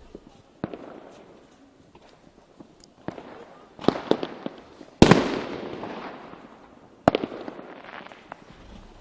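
Lesli Pyrotechnik fireworks going off in separate sharp bangs. A quick cluster of cracks comes about four seconds in, and the loudest bang about five seconds in, with a long echo fading over about two seconds. Another bang follows near the end.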